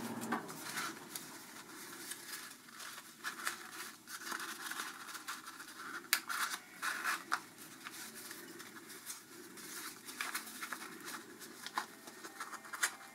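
Folded origami paper rustling and crinkling in the hands as sonobe units are worked together, tabs pushed into pockets to close a modular cube. Soft, irregular crackles and scrapes.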